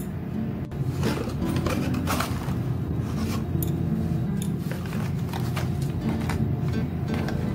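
Plastic snack wrappers crinkling and a cardboard box being handled and opened, with scattered sharp crackles and taps, over steady background music.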